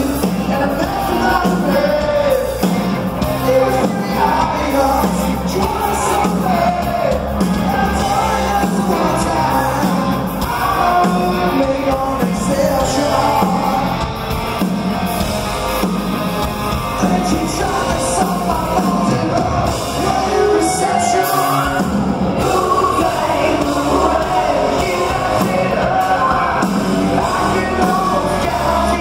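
Live rock band playing loud, electric guitars, bass and drums with a male singer, heard from the audience in a concert hall.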